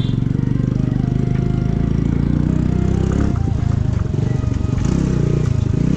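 Motorcycle engine running under way, a loud, steady low pulsing that gets rougher in the middle.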